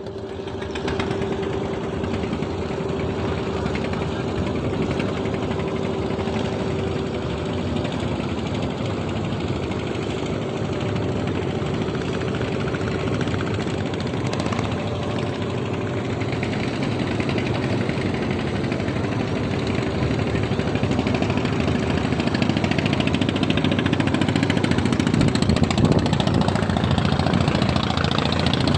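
A boat's engine running steadily, getting louder towards the end.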